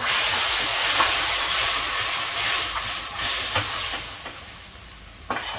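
Water sizzling and hissing as it boils off on hot ghee and browned onion–ginger-garlic paste in a stainless steel kadai on high flame, deglazing the pan. The hiss starts suddenly and fades over a few seconds, with a few scrapes of a slotted steel spoon stirring.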